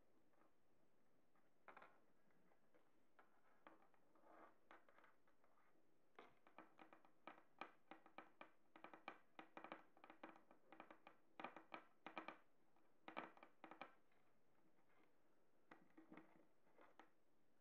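Faint clicking, tapping and scratching of long fingernails on a hard countertop as they pick at and tear small raw fish. The taps come in quick runs through the middle, with only a few before and near the end.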